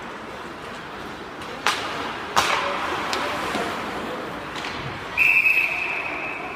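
Two sharp cracks of puck and stick in ice hockey play, then a referee's whistle blown once, a steady shrill blast of about a second and a half near the end, stopping play after a scramble at the net. Rink echo and crowd murmur underneath throughout.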